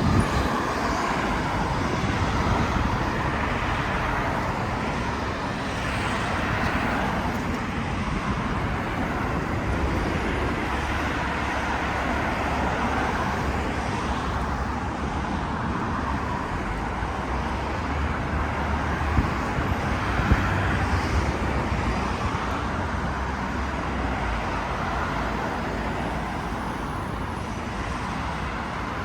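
Steady city road traffic: a continuous hum and rumble of passing cars and buses, with two brief sharp knocks about two-thirds of the way through.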